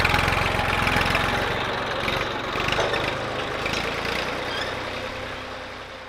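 Tractor engine running steadily while it drags a tine cultivator through dry cow manure, turning the manure over so that it dries. The engine grows fainter toward the end as the tractor moves off.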